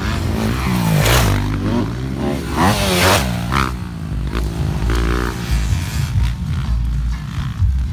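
Motocross dirt bikes racing past, their engines revving so the note rises and falls several times as each bike goes by.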